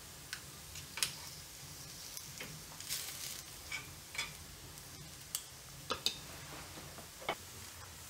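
A metal spoon tapping and clicking now and then against a glass mixing bowl and a cast-iron cookie mold as batter is spooned into the mold, about ten light, irregular clicks over a low steady hum.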